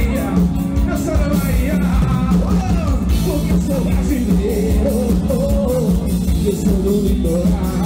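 Loud live band music with a lead singer over a steady, heavy bass.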